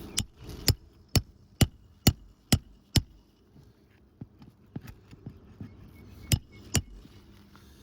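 Hammer driving roofing nails into an asphalt shingle: seven sharp, evenly paced strikes about two a second, then a few faint taps, then two more strikes near the end.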